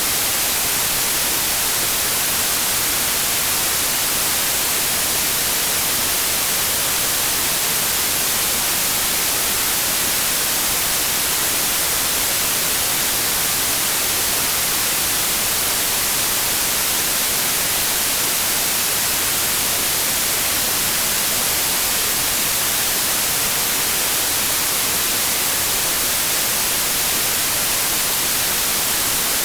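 Steady white noise: an even, unchanging hiss, strongest in the highest pitches.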